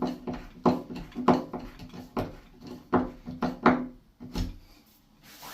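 Hand screwdriver driving a threaded plasterboard wall plug into a drilled hole: a series of creaks and clicks, about one every half second to a second, as the plug's thread bites into the plasterboard. It stops about four and a half seconds in.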